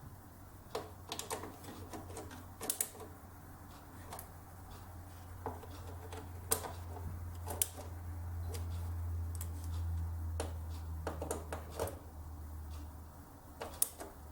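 Motherboard mounting screws being snugged down by hand with a screwdriver: scattered light clicks and taps of the driver and metal screws. A low steady hum swells through the middle and fades near the end.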